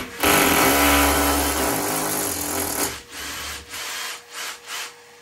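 Power drill with a 10 mm bit boring into the wall for about three seconds, its pitch sinking a little under load, then several short bursts. A vacuum cleaner runs steadily underneath, its hose held at the hole to suck up the drilling dust.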